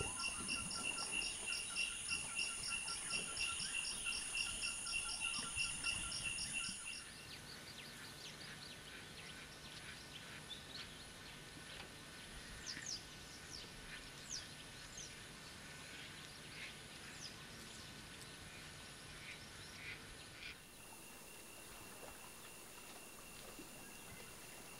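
Tropical forest ambience. A dense insect chorus trills in rapid, even pulses, then about seven seconds in it gives way to a quieter background with scattered short high chirps. Near the end only a faint steady high insect drone remains.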